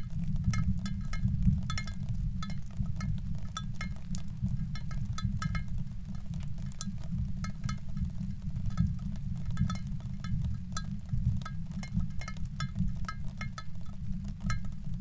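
Experimental performance soundtrack: a dense, steady low rumble with a sharp upper edge, and scattered small clicks and clinks, some in quick clusters, sprinkled over it.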